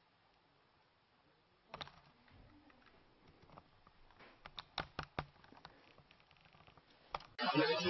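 Faint clicks and taps in a quiet room: one about two seconds in and a quick run of sharper ones around five seconds in. A louder sound cuts in just before the end.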